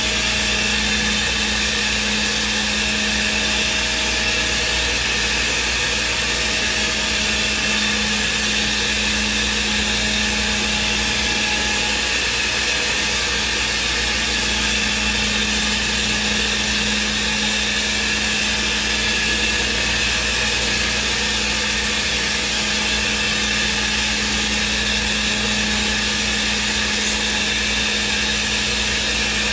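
Thermwood CNC router spindle machining a block, with a steady whine over continuous machine noise that does not change in level.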